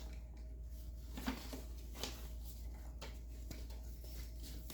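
Faint, scattered clicks and light handling noise from electrical wires being worked by hand and with pliers in a wall switch box, over a steady low hum.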